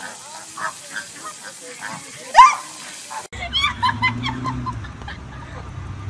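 A flock of flamingos calling with short goose-like honks and gabbling, one much louder honk about two and a half seconds in. After an abrupt cut, a steady low hum runs under a few short high chirps.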